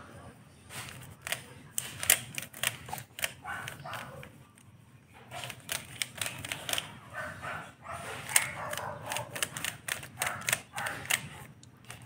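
Plastic 3x3 Rubik's cube being turned by hand: quick, irregular clicking and rasping as its layers are twisted and snap into place, with a short pause near the middle.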